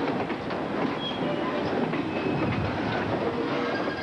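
Boxcars of a freight train rolling past close by, their wheels clacking over the rail joints, with a few brief, thin wheel squeals.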